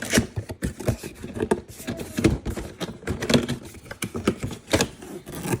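Small accessories and their packaging being handled: irregular rustling, light clicks and knocks.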